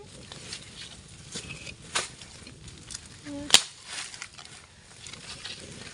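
Footsteps and movement through dry dead leaves and twigs: scattered crackling and rustling, with two sharp cracks about two seconds in and about three and a half seconds in, the second the loudest.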